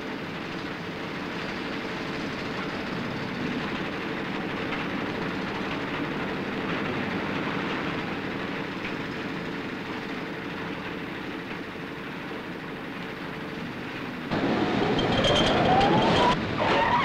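Steady machinery noise of a dam construction site, then about 14 seconds in a louder rising whine as the cableway winch starts up to hoist the skip.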